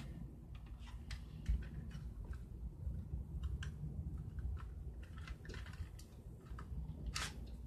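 Light, scattered plastic clicks and rattles from a toy BB pistol being handled as its magazine is pulled out, over a low rumble.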